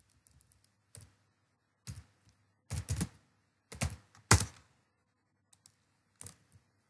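Computer keyboard keystrokes: a few separate, uneven clicks while a word is typed, a quick cluster near the middle and the loudest stroke a little after.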